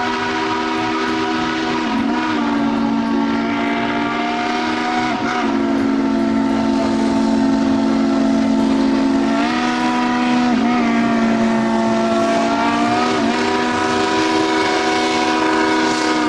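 Steam locomotive whistle blown in a long, loud chord of several tones. Its pitch sags briefly a few times as it is worked.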